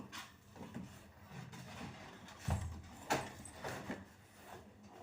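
Faint handling noises as a laptop and its packaging are moved: soft rubbing and rustling, a dull thump about two and a half seconds in, and a sharp knock just after.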